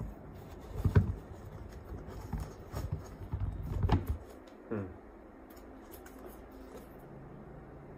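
Handling noise from a pair of new Nike Air More Uptempo sneakers: dull knocks and rustles as the laces are tugged and the shoes are picked up, with a short falling squeak just before five seconds in. After that only a faint steady low hum remains.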